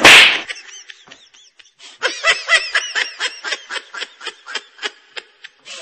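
A short loud burst of noise, then high-pitched snickering laughter: a fast run of short 'hee-hee' bursts, about five a second, that grows louder about two seconds in and fades near the end.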